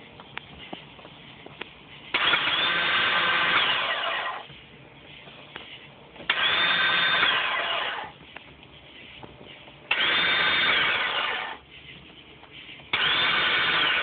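Sea-Doo GTX Ltd's electric starter motor whining in four bursts of about two seconds each, each ending in a falling whine as it spins down, without cranking the engine. The owner suspects the starter is spinning freely because its Bendix drive is not engaging the flywheel.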